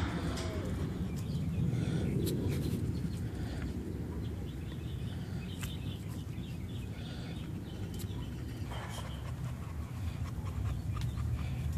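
Adult bully-breed dog panting while a tri-colour puppy plays at its face, with soft scuffling and clicks, over a steady low rumble.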